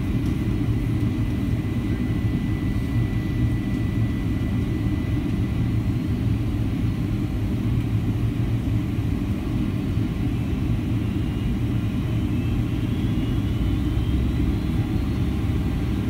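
Steady low rumble of engine and airflow noise inside an airliner's cabin as it descends on approach to land. A faint high whine rises gently in the second half.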